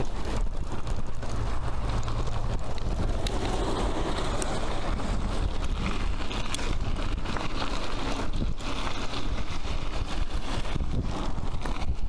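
Wind rushing and buffeting over the microphone of a camera carried on a moving bicycle, a steady noise with a heavy low rumble.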